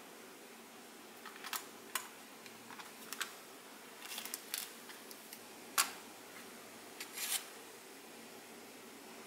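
Scattered sharp plastic clicks and light rattles from handling a Remax RM-C38 wireless car charger mount and fitting a phone into its clamping arms, the loudest single click a little before six seconds in.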